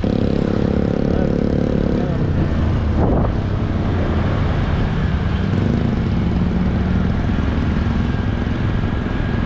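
Steady rush of a swollen, flood-brown river below a bridge. A motorcycle engine runs steadily over it for the first two seconds, and a lower engine hum comes in a little past halfway.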